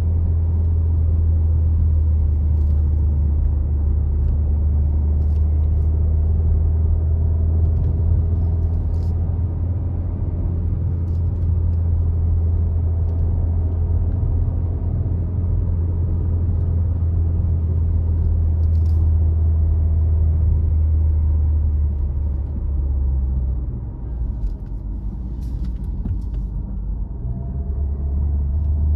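A car being driven, its engine and road noise making a steady low drone. The drone eases off for a few seconds near the end, then picks up again, with a few faint ticks scattered through.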